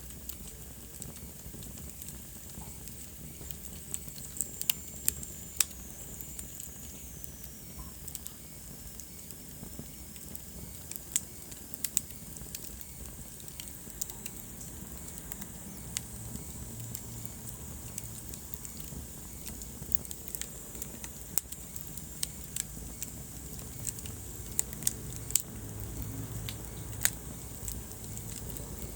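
Wood fire in a fireplace crackling, with sharp pops scattered throughout over a soft hiss and low rumble. About five seconds in, a thin high whistle slides downward for a few seconds.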